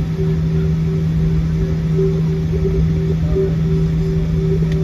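Steady jet airliner cabin noise while taxiing: a constant engine hum over a low rumble.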